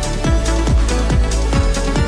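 Electronic dance music with a steady kick-drum beat, a little over two beats a second, and hi-hats over it.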